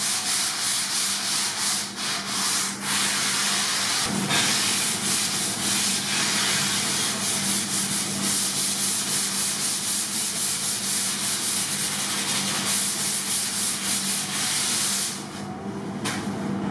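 Hand-sanding a foam surfboard blank: repeated back-and-forth strokes of a sanding sponge and then a sanding block rasping across the foam, over a steady low hum. The sanding drops away briefly near the end.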